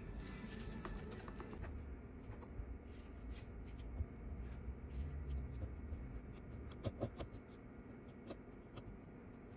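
Faint scratching and small clicks of a thin metal pick digging packed lint out of a phone's Lightning charging port, over a low steady rumble, with a short run of clicks about seven seconds in.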